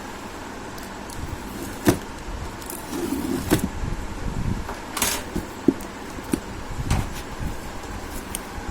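Packing being cut open with scissors and handled: a handful of sharp clicks and snips among rustling of cardboard and plastic.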